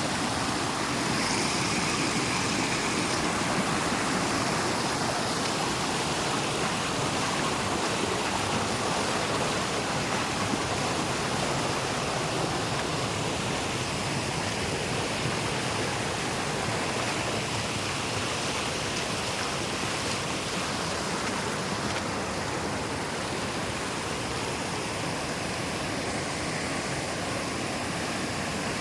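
Waterfall water rushing and splashing in a steady, unbroken wash of noise.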